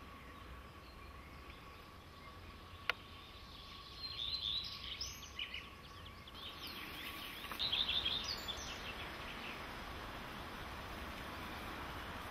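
Songbird singing in woodland, two short bursts of quick high chirps. There is a single sharp click a little before the first burst, over a faint steady outdoor hiss.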